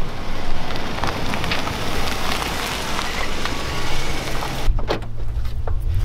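Wind rushing over the microphone; about four and a half seconds in it gives way to a vehicle engine idling with a low steady hum.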